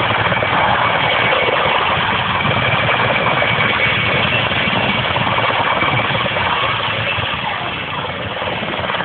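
Sikorsky S-64 Air-Crane heavy-lift helicopter hovering just above the ground: steady, loud rotor and turbine noise with a thin high turbine whine, easing slightly near the end.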